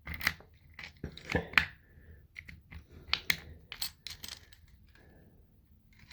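Small metal clicks and scraping of a Weiser SmartKey lock cylinder and key being handled in the reset tool as the new key is worked in. About a dozen sharp clicks come in the first four seconds, then only faint handling.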